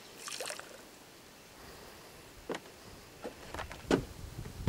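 A few sharp knocks and clicks over a quiet background, coming closer together toward the end, the loudest about four seconds in.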